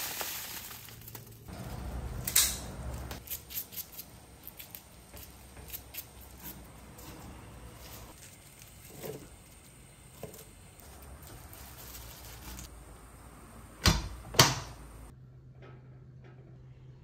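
White garlic bulbs being handled: a knock as the bagged bulbs are set down, then many light clicks and crackles of papery garlic skins being peeled. Near the end come two sharp clicks, followed by a faint low hum.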